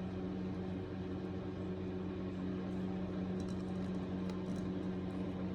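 Steady mechanical hum, like a fan or appliance running, with a few faint clicks.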